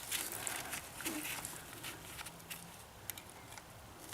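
Faint scattered light clicks and handling noise as a master link side plate is tried onto its pins on a small motorbike's drive chain.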